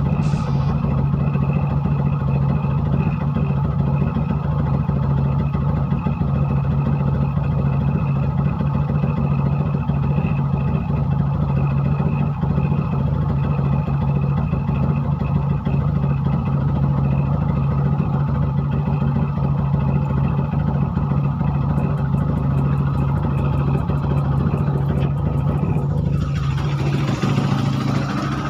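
Bored-and-stroked Honda CRF150L single-cylinder four-stroke engine running loud and held at one steady high speed. About two seconds before the end the pitch falls away as the engine comes off the throttle, with a hiss rising over it.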